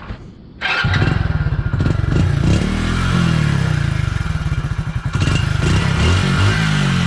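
Exhaust of a Hero Splendor Plus single-cylinder four-stroke motorcycle engine, quiet at first, then suddenly much louder under a second in. It is revved up and down a couple of times.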